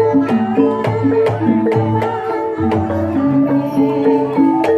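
Javanese gamelan music for an ebeg dance: tuned struck keys play a continuous run of short notes in a busy, repeating pattern over hand drums.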